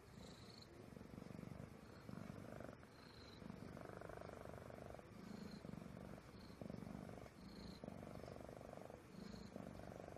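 Sleepy domestic cat purring quietly in a steady rhythm, each breath in and out making a pulse of about a second.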